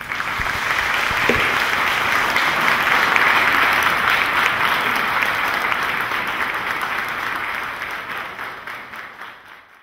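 Audience applauding, a dense steady clapping that swells in the first second, holds, then fades away gradually near the end.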